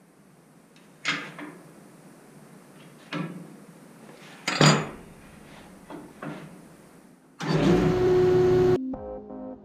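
Several sharp knocks of hard maple boards and tools being handled on a jointer's cast-iron table, then the floor-standing jointer switched on: its motor and cutterhead spin up with a loud rush and a steady whine that rises briefly, then cuts off abruptly after about a second and a half.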